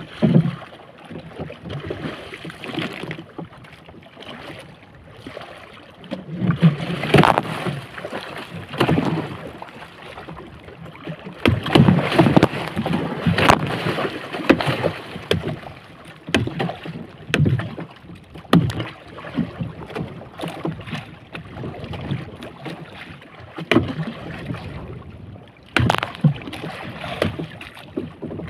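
Water splashing in irregular surges as a large hooked fish thrashes at the side of a small wooden boat, with sharp knocks and thuds mixed in, and wind on the microphone.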